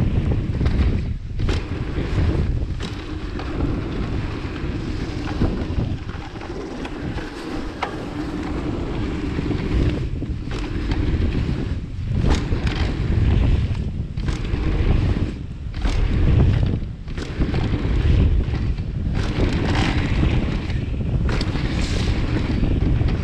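Wind buffeting the microphone over the steady rumble of mountain bike tyres rolling down a flow trail, with brief knocks and rattles scattered through it.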